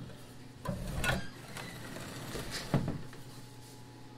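Knocks and clunks from folding a chipper shredder's hinged hopper bracket by hand: a rattling handling noise about a second in and a sharp knock near three seconds in.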